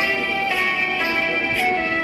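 Background music: a melody of held notes that change about every half second, with a light beat at the same pace.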